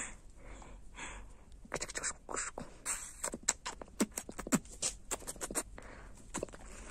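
Puppy moving about on a concrete floor: a run of quick, irregular light clicks and taps lasting about four seconds.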